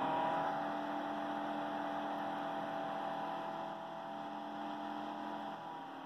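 FutureBit Apollo ASIC miner's cooling fan spun up in eco mode: a steady whir with a hum of several steady tones, easing slightly quieter toward the end.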